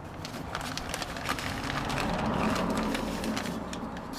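Crackling, rustling handling noise with a scatter of sharp clicks, swelling to its loudest about halfway through.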